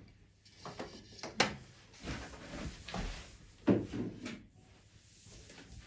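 Packaging being handled and pulled out during unboxing: rustling and scraping, with two sharp knocks about a second and a half and nearly four seconds in.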